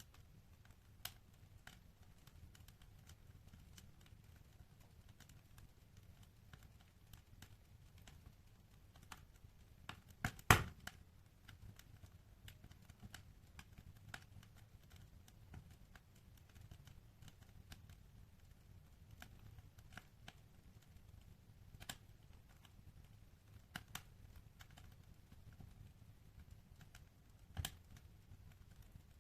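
Wood fire burning in a fireplace: sparse crackles and pops over a faint low rumble, with one loud pop about ten seconds in.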